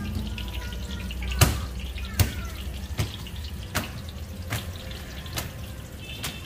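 A series of sharp knocks, seven in all and about one every 0.8 seconds, the first the loudest, over a steady low hum.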